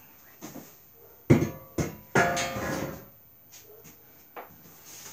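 Metal lawn-cart parts being handled out of their cardboard box: two sharp knocks about a second in, then about a second of scraping, ringing clatter, and a few soft taps near the end.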